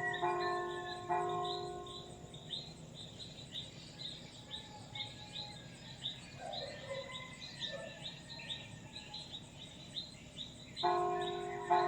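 Church bell struck twice in the first second or so, each strike ringing out and fading over about two seconds, then struck twice more near the end. Throughout, a bird chirps over and over, about two short high chirps a second.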